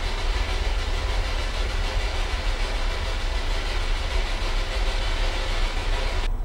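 Steady low rumble with an even hiss over it; the hiss drops away suddenly near the end while the rumble goes on.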